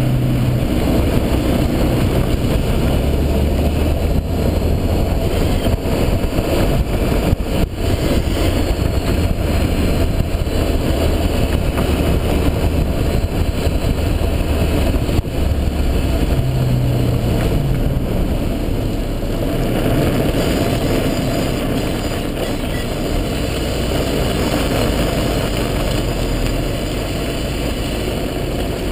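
2004 Honda S2000 driving with steady engine and road noise, and a faint high squeal at times. The owner hears that squeal on left turns, finds braking does not change it, and suspects a bad wheel bearing.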